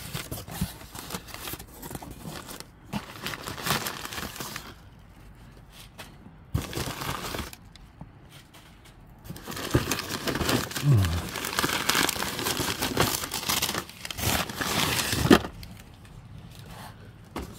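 Crumpled packing paper rustling and crinkling as it is pulled out of a cardboard shipping box, in several spells of handling, the longest and loudest in the second half.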